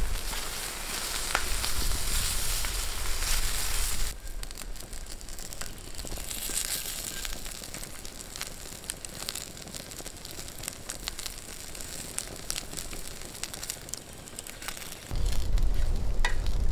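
Swedish meatballs and slices of falukorv sausage sizzling and frying in a flat pan over a campfire, with scattered short clicks and scrapes as a wooden spatula turns them. A louder low rumble sits under the sizzle in the first few seconds and comes back near the end.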